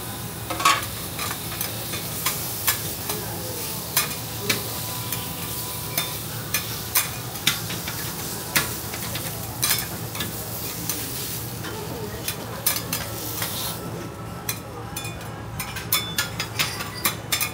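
Bacon and yakisoba noodles sizzling on a flat steel teppan griddle, with repeated sharp clicks and taps of metal spatulas against the griddle. The sizzle fades near the end while the spatula taps go on.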